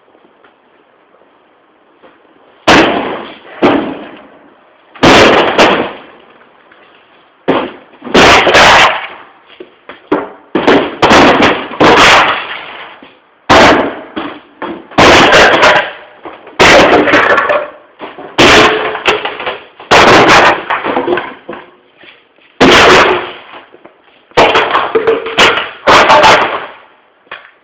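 Furniture, a wardrobe, being smashed apart: a long string of loud, heavy blows and crashes, roughly one a second, each ringing out briefly. It starts a few seconds in.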